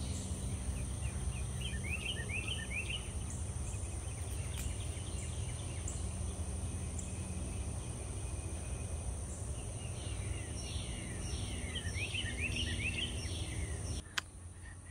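Garden ambience: songbirds chirping in quick runs of short, falling notes, at the start and again from about ten seconds in, over a steady high insect drone and a low rumble. Near the end a click, and the sound drops quieter.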